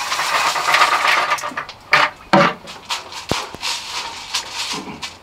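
Dry turkey feed pouring from a plastic bucket into a galvanized metal hanging feeder: a steady hiss for about the first second and a half, then a few separate knocks as the bucket and feeder are handled.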